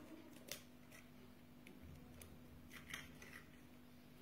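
Near silence: room tone with a few faint, light clicks scattered through it.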